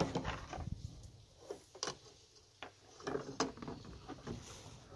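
A few light, scattered clicks and taps from hands handling the kite's bamboo spar and its string on a table.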